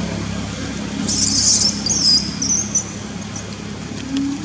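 High-pitched squeals from young long-tailed macaques: a short harsh squeal about a second in, then thinner broken squeaks, over a steady low hum.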